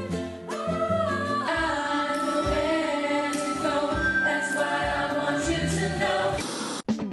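A large group of voices singing together in chorus, a ukulele ensemble's singers, which cuts off abruptly near the end.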